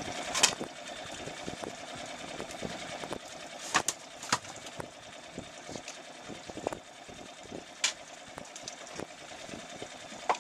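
Boat engine idling in a steady hum, with several sharp knocks scattered through it as a freshly caught fish is lifted aboard and handled.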